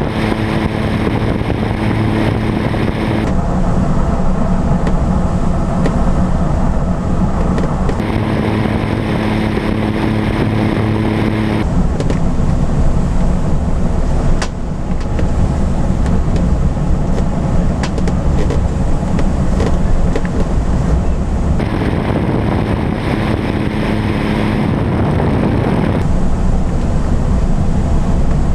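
Steady aircraft noise during an aerotow that switches abruptly several times. One sound is the tow plane's engine and propeller drone, with a steady low tone; it is heard at the start, around a third of the way in, and again near three quarters. The other, in between, is the rushing airflow inside the glider's cockpit.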